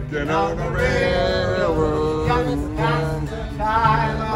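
A strummed acoustic guitar with a neck-rack harmonica playing long held melody notes that slide between pitches, a live country-folk tune.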